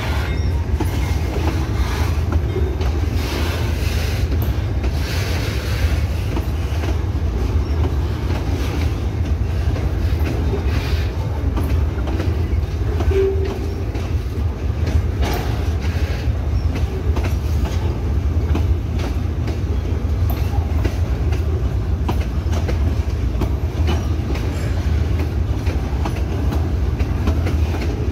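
Loaded tank wagons of a freight train rolling past at close range: a steady low rumble of steel wheels on rail, with repeated clicks and clacks as the wheels cross rail joints.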